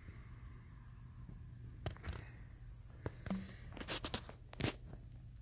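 An insect chirping steadily, a short high-pitched pulse repeating about three times a second, over a low steady hum. A few sharp clicks and knocks come through, the loudest near the end.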